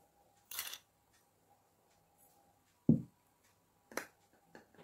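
Spoonfuls of sugar tipped onto flour in a mixing bowl: a short grainy hiss about half a second in, then a dull thump around the middle and a few light clicks near the end.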